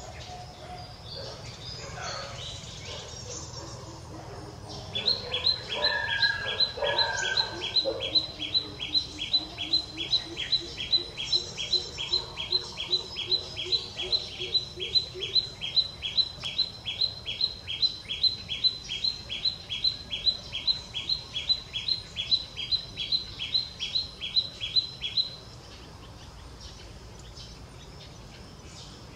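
A bird repeating a short, high chirp about three times a second for some twenty seconds, which then cuts off abruptly.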